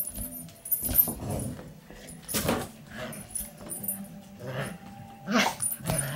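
English Cocker Spaniel puppy growling in short, irregular bursts while tugging on a rope toy in play.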